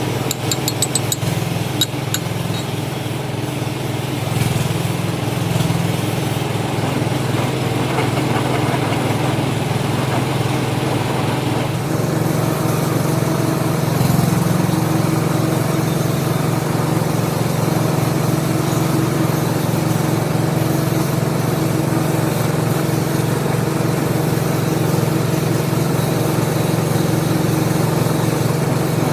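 Lathe motor running steadily with a constant machine hum. There are a few sharp ticks in the first two seconds, and the sound shifts slightly about twelve seconds in.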